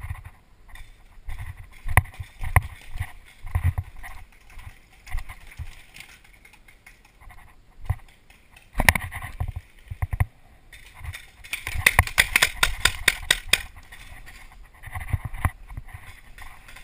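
Paintball marker firing a rapid string of shots, about eight a second, for a couple of seconds past the middle. Before it, irregular knocks and thumps of a player moving on foot with gear rattling.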